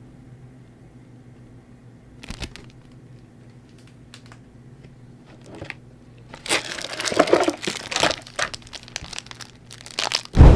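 Crinkling of the plastic wrapping on Pokémon trading card packaging being handled and pulled open. It starts loud about two-thirds of the way in, after a quiet stretch with a faint low hum, and ends with a heavy thump.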